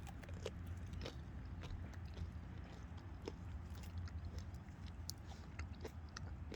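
Close chewing of a strawberry coated in hard toffee: quiet mouth sounds with scattered short sharp clicks of the candy crunching, over a steady low hum.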